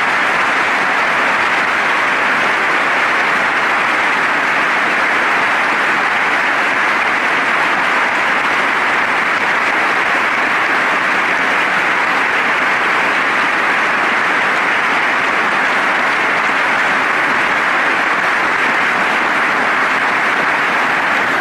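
Long, steady applause from a large audience of legislators clapping.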